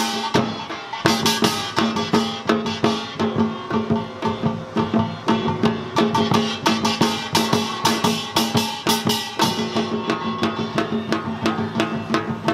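Samdo samulnori ensemble playing seated: janggu and buk drums struck in dense, fast rhythms, with kkwaenggwari small gongs clanging on top and a jing gong ringing steadily underneath.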